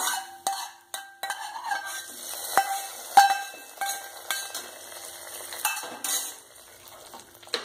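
Steel ladle scraping and clinking against a steel kadai, with short metallic rings, as a hot tempering of mustard seeds, dried red chillies and curry leaves in oil is tipped into the yogurt curry, and a light sizzle as the oil meets it. Two sharp clinks stand out past the middle, then the ladle stirs in the pot.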